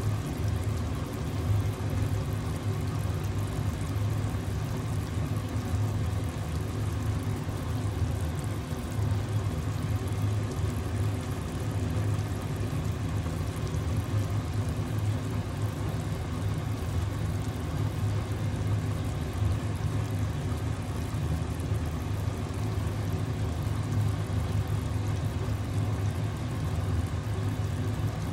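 Steady low hum with an even rushing noise over it, as from a running motor, unchanging throughout.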